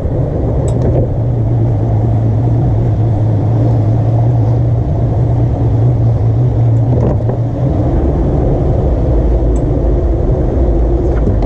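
Boat motor running steadily over the rush of water, its hum dropping lower about seven seconds in.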